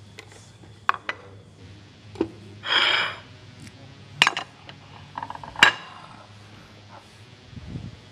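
Kitchen utensils, plates and pans being handled: scattered knocks and clinks, the sharpest a little past halfway, with a short rushing scrape about three seconds in.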